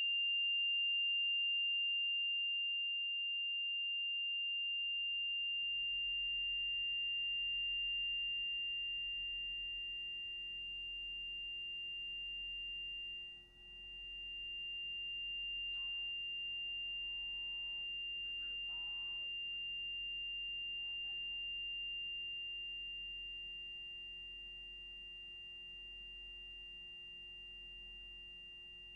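A steady high-pitched ringing tone, like ringing ears after an explosion, follows the blast of the bullet. A second, lower tone and a low hum join it about four seconds in. The tone dips briefly about halfway through, faint wavering sounds come under it a little later, and it fades out slowly near the end.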